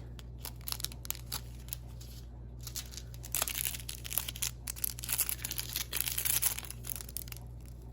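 Small plastic bags of diamond-painting drills crinkling and rustling as they are handled, with light clicks from the rhinestones shifting inside; busiest in the middle stretch.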